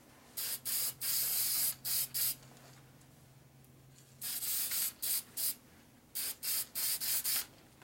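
Aerosol can of gasket sealant hissing in a series of short spray bursts as a gasket is coated, one longer burst among them; the bursts stop for about two seconds midway, then resume in quick short squirts.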